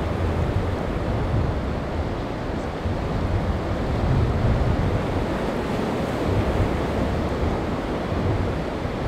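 Strong wind buffeting the microphone in irregular low rumbling gusts, over a steady rush of waves.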